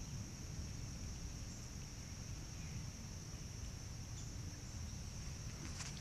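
Insects buzzing steadily in a high, unbroken chorus over a low rumble.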